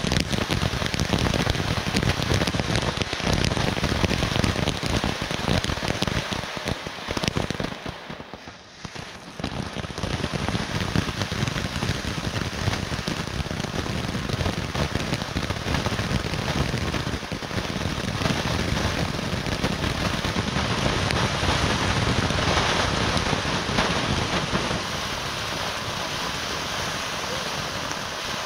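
Brothers Fireworks 'Be All and End All' ground fountain spraying sparks: a steady rushing hiss with dense crackle. It dies down briefly about eight seconds in, then picks up again and carries on.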